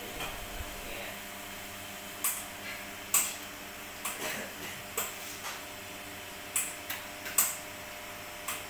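LaCimbali two-group espresso machine flushing water through both group heads: a steady pump hum with sharp, irregular clicks over it, about eight in all.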